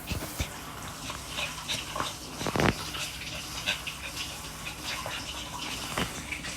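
A pet dog breathing and moving about, with scattered small clicks and rustles and a louder low thump about two and a half seconds in.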